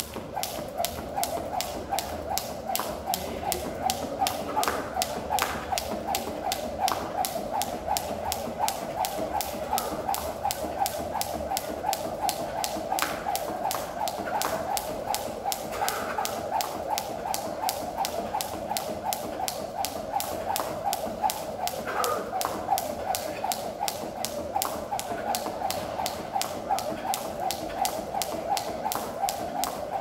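Jump rope slapping a concrete floor in a fast, steady rhythm as the jumper skips continuously, each turn a sharp tap.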